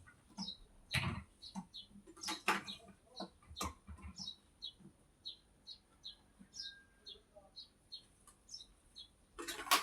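A small bird chirping over and over, short high notes about two a second, with a few sharp knocks and clatters in between.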